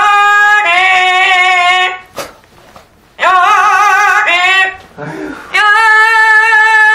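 Amazon parrot singing three long, loud held notes with a wavering pitch, mimicking a human song, with short pauses between the notes.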